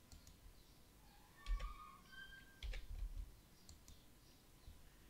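Faint computer keyboard and mouse clicks, a few separate clicks with the strongest about one and a half and two and a half seconds in.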